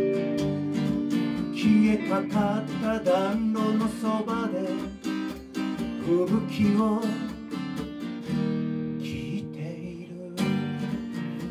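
Live acoustic guitar strumming chords together with a thinline Telecaster-style electric guitar playing a lead line. The playing drops back about eight seconds in, and a loud strummed chord comes in near the end.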